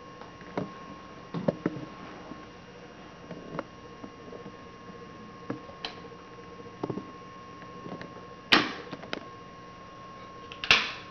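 Faint steady hum with thin steady tones, broken by scattered light clicks and knocks; two sharp clacks, the loudest sounds, come about two-thirds of the way through and near the end.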